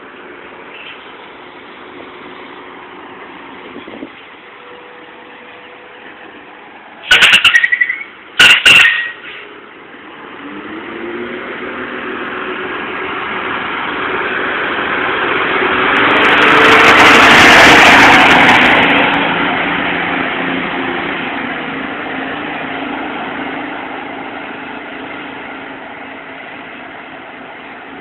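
An Eagle bus sounds two short horn blasts, then its engine comes up, grows loud as the bus passes, and fades away as it goes off.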